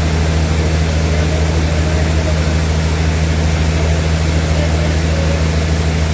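Sawmill machinery running steadily, giving an even, unbroken low hum with a noisy hiss above it.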